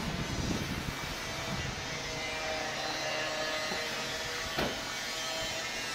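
Steady road and wind noise of a ride along a city street, with a faint steady hum and one sharp click a little over four and a half seconds in.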